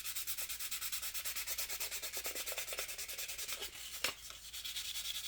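Dry sanding of putty filler on a plastic scale-model car body by hand: rapid back-and-forth scratchy strokes, about eight a second, with a single sharp click about four seconds in.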